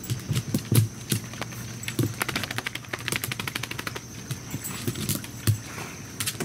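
A dog scrabbling and clambering on plastic dog crates and a wooden deck railing: claw clicks and dull thumps, with a fast run of clicks about two seconds in that lasts about a second.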